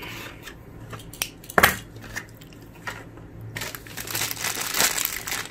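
A few light clicks and a sharper knock about one and a half seconds in, then a clear plastic zip bag of accessories crinkling steadily as it is handled, from about three and a half seconds in.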